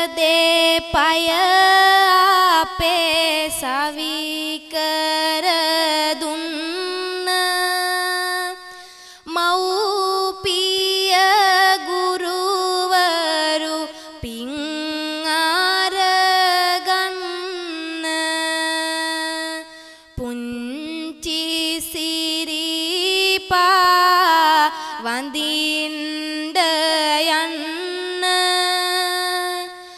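A woman's voice singing Sinhala verse (kavi) in slow, long-held phrases with wavering ornaments, in four phrases with short breaths between them.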